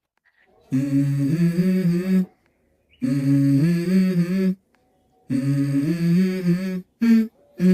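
Background music: a hummed vocal melody sung in three short repeated phrases of about a second and a half each, with brief silent gaps between them, then shorter hummed notes near the end.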